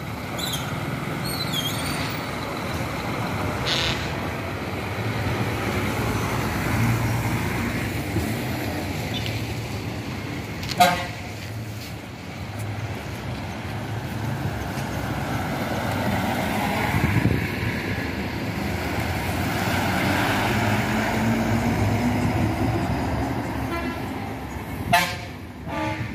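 Diesel buses running and moving off at low speed, with a steady engine rumble, a short horn toot about eleven seconds in and another near the end.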